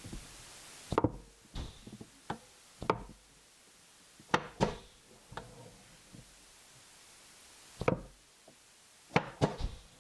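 Pneumatic blind stapler working on a wooden cabinet face frame: a series of sharp, separate knocks and clacks as the tool is set in place, clamps and fires, with loud clusters about a second in, around four and a half seconds, and near the end.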